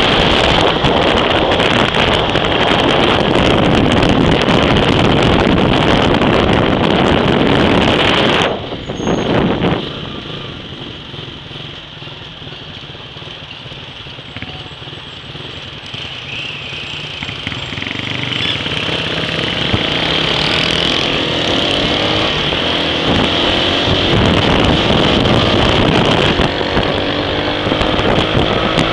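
Wind rushing over the microphone while riding a motorcycle, with the bike's engine under it. The wind noise drops suddenly about a third of the way through as the bike slows, then builds steadily again as it picks up speed, the engine note rising near the end.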